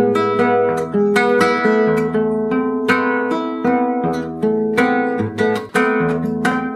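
Instrumental background music: a quick, steady run of plucked guitar notes over a low bass line.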